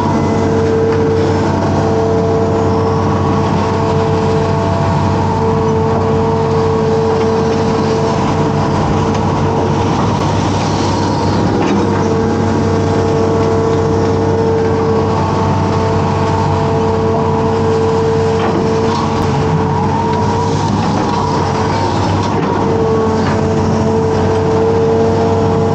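Hitachi amphibious excavator's diesel engine and hydraulics running steadily under digging load, heard from the cab, with a steady whine that drops out and comes back several times as the arm works.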